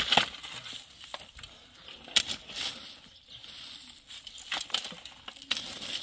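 Shovels and a digging hoe scraping and striking stony soil, with a handful of sharp scrapes and knocks at irregular intervals. The loudest comes just after two seconds in.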